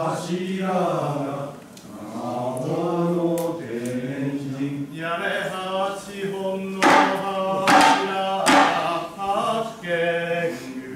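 Voices of Goten manzai performers chanting together in a drawn-out melody that steps up and down in pitch. Past the middle come three sharp tsuzumi hand-drum strikes, about a second apart.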